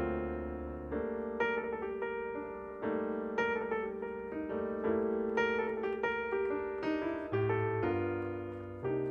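Background piano music: a repeating pattern of struck chords about every half second over held low notes.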